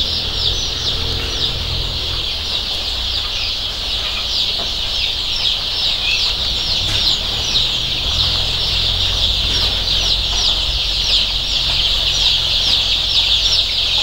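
A large flock of young Aseel and country-breed (nattu kozhi) chicks peeping together: a dense, continuous chorus of high, short falling cheeps, with a steady low rumble underneath.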